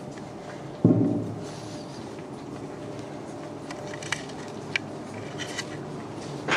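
Steady hum of machinery in the accelerator tunnel, with a sudden heavy thump about a second in, a few sharp light clicks a few seconds later and a smaller knock near the end.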